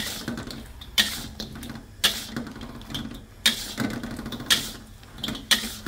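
Metal spatula scraping and knocking against a stainless steel wok while tossing chicken pieces in a thick sauce, with sharp strokes about once a second.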